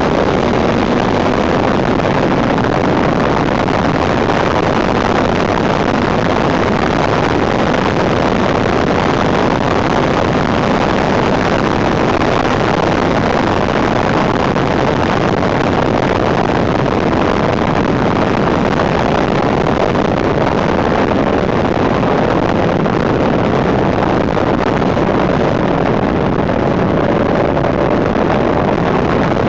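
Steady, heavy wind noise buffeting the handlebar-mounted camera's microphone at road speed, with the Suzuki GSX750F Katana's inline-four engine running faintly underneath.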